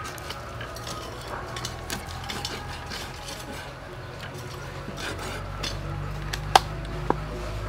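A cleaver cutting a large scaled fish into steaks on a wooden chopping board: many small crackling clicks as the blade works through scales and backbone, with two sharp knocks near the end.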